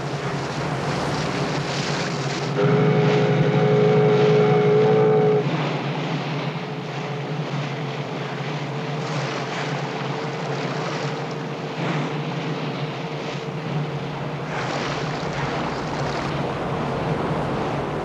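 A ship under way: water rushing and splashing past the bow over a steady low engine hum. A loud held tone sounds for about three seconds, starting about two and a half seconds in.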